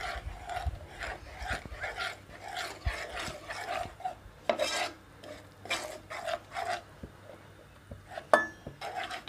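Spoon scraping and stirring gram flour into melted ghee in a non-stick pan, in repeated short strokes. Near the end a steel bowl knocks the pan once with a sharp, briefly ringing tap.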